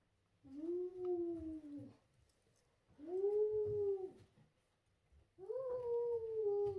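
A young boy's voice making ghost noises meant to scare: three long wails, each about a second and a half, holding pitch and then falling slightly, with short pauses between.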